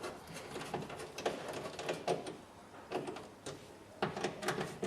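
Light clicks and taps of plastic and metal door parts being handled and clipped together inside a car door, about half a dozen short sharp strokes at uneven intervals.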